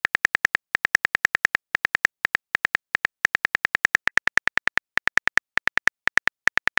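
Rapid keyboard typing clicks from a phone chat app's typing sound effect, several a second with brief pauses between runs, as a message is typed out letter by letter.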